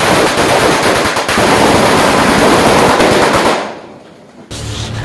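Sustained rapid gunfire with bullet-impact effects cracking in quick succession, dying away about three and a half seconds in. A low rumble starts near the end.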